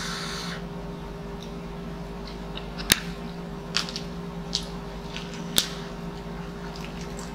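Close-miked eating sounds: chewing and the crinkle of a lettuce leaf being folded around noodles into a wrap, with a few short sharp clicks, the loudest about three seconds in, over a steady low hum.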